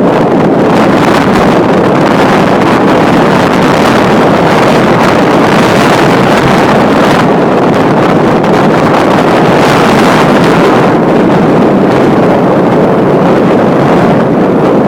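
Strong wind blowing across the microphone: a loud, steady rushing noise that swells and eases with the gusts.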